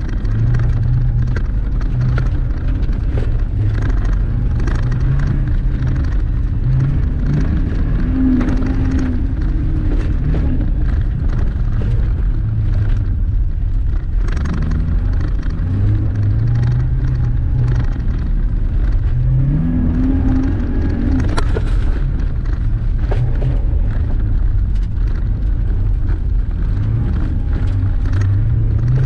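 Subaru BRZ's flat-four boxer engine heard from inside the cabin, revving up and dropping back again and again as the car is driven hard around a dirt course. A steady rush of tyre and road noise runs under it, with scattered sharp ticks.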